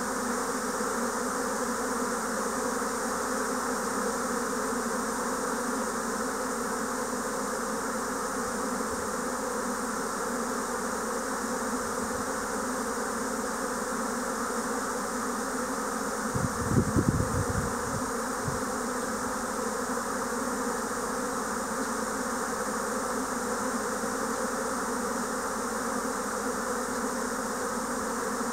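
A swarm of Japanese honeybees in flight, the colony pouring out during swarming: a dense, steady hum of countless wingbeats. A brief low thumping a little past halfway.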